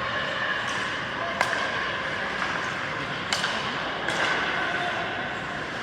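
Ice hockey game in an arena: a few sharp clacks of hockey stick and puck over steady spectator chatter.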